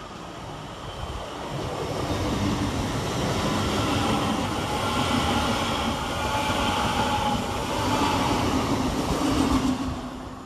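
Passenger train running slowly past on the platform line: a steady rumble with a motor whine. It builds about two seconds in and fades near the end.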